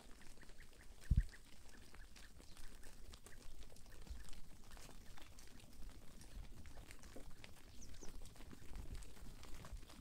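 Faint bird calls, typical of farmyard fowl, over an outdoor noise bed with scattered small ticks, and one dull thump about a second in.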